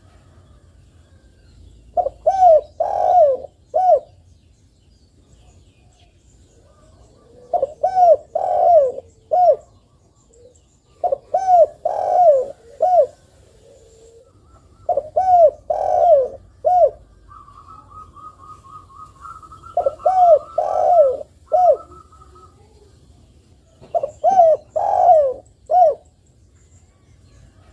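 Spotted dove cooing in repeated phrases of four or five hoarse coos, a phrase about every four seconds: a dove in full song. Faint higher chirps and a short trill sound behind it near the two-thirds mark.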